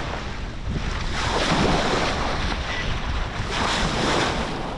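Sea water rushing and splashing along a sailboat's bow as it moves through the waves, swelling in surges, with a steady low wind rumble on the microphone.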